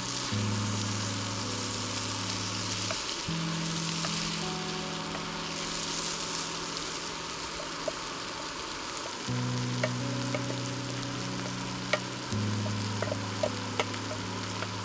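Chopped vegetables sizzling as they fry in a pan and are stirred with a wooden spatula, with a few sharp clicks of the spatula against the pan. Soft background music of sustained low chords changing every few seconds plays under it.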